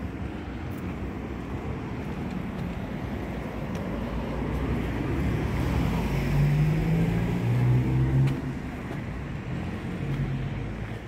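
A motor vehicle driving past: a low engine rumble that grows louder to a peak with a humming engine note about six to eight seconds in, then fades.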